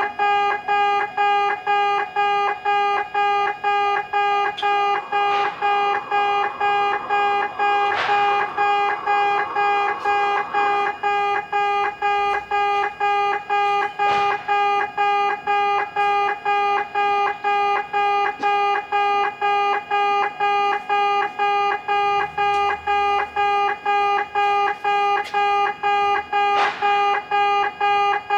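Level-crossing warning alarm inside a Kintetsu station, sounding an electronic 'pe' beep over and over, about two beeps a second, in place of the usual clanging bell.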